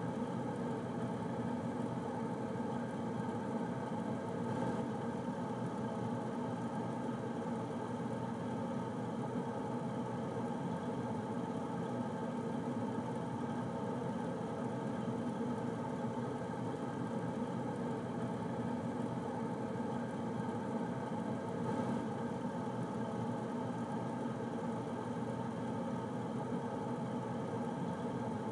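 Air conditioner running steadily: an even, unbroken hum with several steady tones in it.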